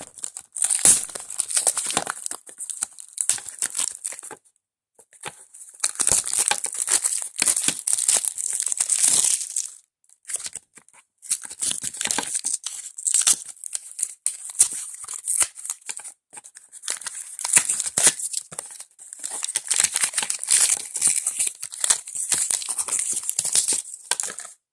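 Shopkins blind-bag packaging being torn open and crinkled by hand: crackly plastic rustling and tearing in several stretches with short pauses between them.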